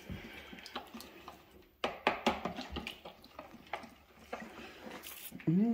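Metal spoon stirring a wet flour mixture in a plastic mixing bowl: a run of quick clicks and scrapes against the bowl, thickest from about two seconds in. A short hummed vocal sound comes near the end.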